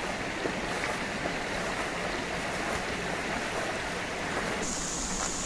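Shallow river water flowing over rounded stones: a steady, even rushing and trickling. A steady high-pitched tone joins about four and a half seconds in.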